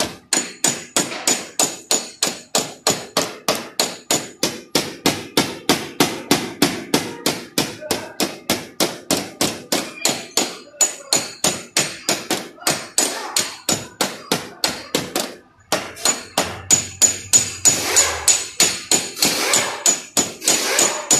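Small hand hammer tapping steadily on a car's sheet-metal body panel, about four light taps a second, working a dent out without damaging the paint (paintless dent repair). The tapping breaks off briefly about fifteen seconds in, then resumes.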